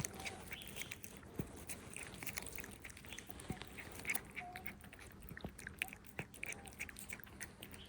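A cat chewing and crunching food, with many small, irregular clicks.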